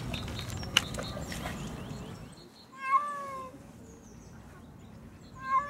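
Domestic cat meowing twice, two short meows that fall in pitch, in the second half, about two and a half seconds apart. A sharp click just under a second in.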